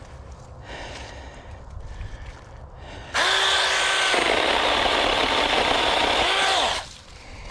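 A 6-inch mini chainsaw starts suddenly about three seconds in with a high motor whine, turns harsher as the chain cuts into the wood of the downed tree, then winds down and stops shortly before the end. Quieter rustling and handling sounds come before it.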